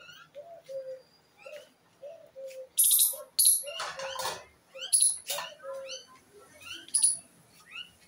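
Common mynas calling: a run of short, low gurgling notes with quick chirps between them. Loud, harsh screeches break in about three, five and seven seconds in.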